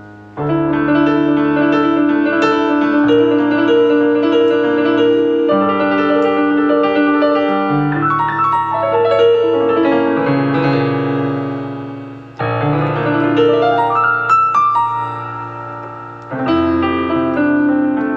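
Yamaha PSR-SX900 arranger keyboard playing a piano sound: chords with a melody over them, struck in three phrases that each come in loud, about half a second in, about twelve seconds in and about sixteen seconds in, and fade as the notes ring out.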